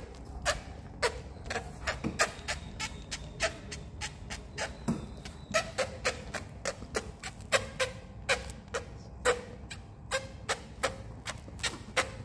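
A quick, irregular run of sharp clicks and light knocks, several a second, many with a short hollow ring.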